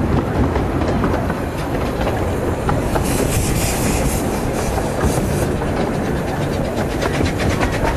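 15-inch gauge miniature railway train running along the track: a steady rumble with wheels clicking over the rail joints. A hiss rises over it about three seconds in and fades a couple of seconds later.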